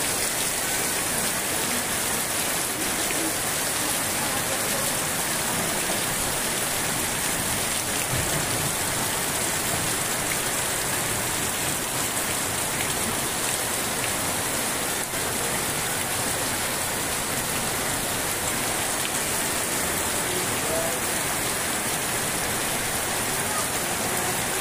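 Heavy rain falling steadily onto wet ground and puddles, an even, unbroken hiss.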